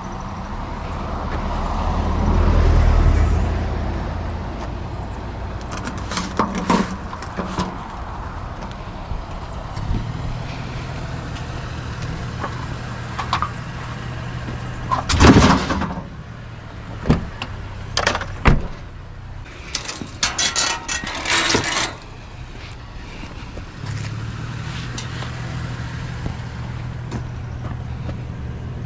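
Scrap metal being handled: a string of sharp metallic knocks and rattles, the loudest about halfway through, then a quick burst of rattling a few seconds later. A vehicle passes near the start, and a low steady hum sounds between the knocks.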